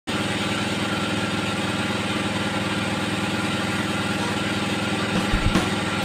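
Sawmill band saw machinery running steadily between cuts, an even mechanical hum with no cutting yet. A few low thumps come in near the end.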